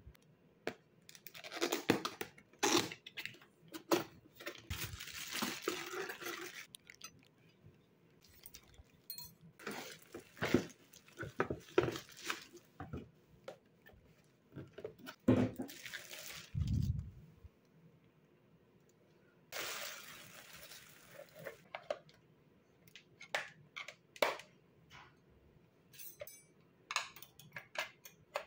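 Kitchen clatter: dishes and utensils clinking and knocking, broken by a few spells of running water lasting a few seconds each, and one dull thud a little past the middle.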